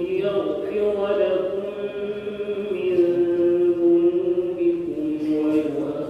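Solo male voice in melodic Quranic recitation (tajwid), drawing out long, steady held notes with short breaks between phrases.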